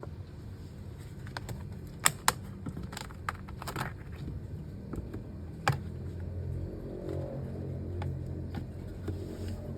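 Scattered sharp clicks and light clinks, the loudest about two seconds in and again near six seconds, over a steady low hum.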